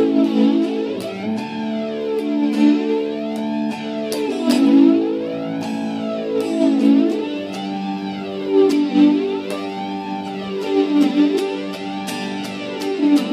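Electric guitar playing ringing, held chords that change every second or two, run through a flanger-type effect that puts a slow whooshing sweep over the sound, repeating every second or two.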